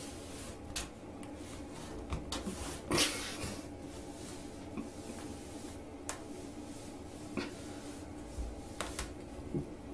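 A woven rag rug scraping and rustling over a tile floor in short, irregular tugs as a cat's paws drag it under a door, with a louder scrape or knock about three seconds in. A steady low hum runs underneath.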